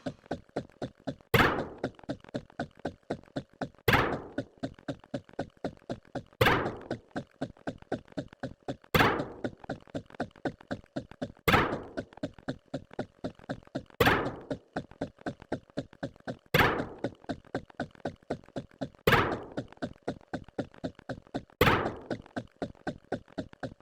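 A heavy thunk repeating evenly about every two and a half seconds, with rapid light clicks between the thunks at about eight a second, like a looped sound effect.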